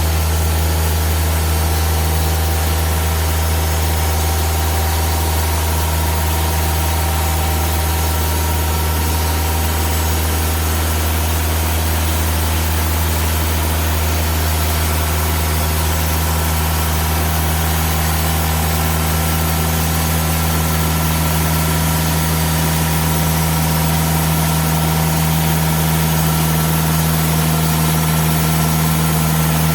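Sawmill engine running steadily with an even low hum, the sound unchanging throughout.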